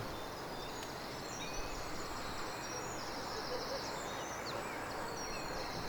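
Steady background hiss with many faint, short, high chirps scattered through it.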